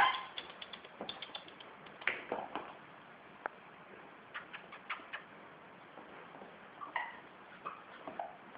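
Shih Tzu puppy's claws ticking on a glazed tile floor in short quick runs as it scampers about, with a sharp, louder sound at the very start and a few brief high squeaks in between.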